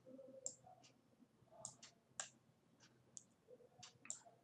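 Faint computer mouse clicks: several single, sharp clicks at irregular intervals over near silence.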